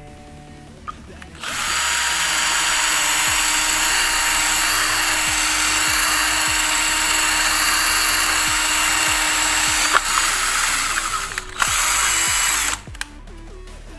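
Cordless drill running as it bores a hole through the plastic housing of an LED bulb: one long run of about ten seconds, a short pause, then a brief second burst.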